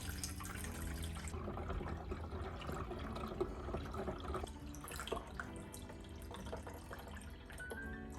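Cold tap water running, filling an espresso machine's water tank.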